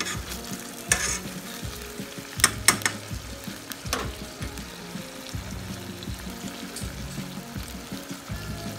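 Baked beans and sausages sizzling in a frying pan, with a fork clicking and scraping against the pan a few times in the first four seconds, loudest about two and a half seconds in.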